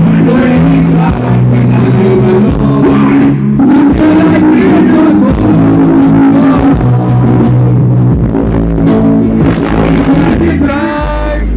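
A recorded song with a singing voice over a steady beat and heavy bass, played loud through a sound system.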